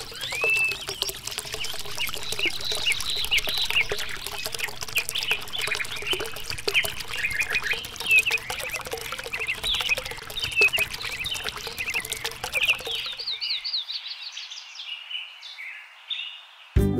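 Many small birds chirping in quick short calls, over the trickle and patter of a thin stream of water falling from a tube into a small pool. About thirteen seconds in, the lower water sound drops out while the chirping goes on, and music begins right at the end.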